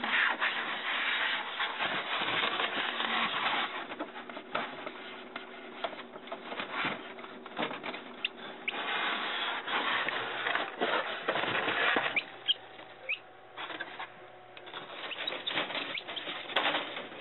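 Plastic parts of a Little Giant incubator being handled: rubbing, scraping and light knocks that come and go in bouts, over a faint steady hum.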